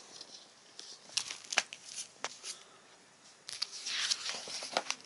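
A picture book being handled and its pages turned: a few sharp taps and clicks, then a papery rustle as a page turns about three and a half seconds in.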